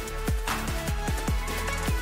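Electronic background music: a deep kick drum that drops in pitch, beating several times a second over held bass notes, with one sharp snare hit about a quarter of the way in.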